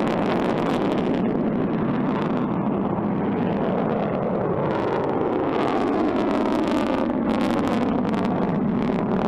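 Kuaizhou-1A solid-fuel rocket motor during liftoff and climb: a steady, dense rush of exhaust noise with crackling in the upper range.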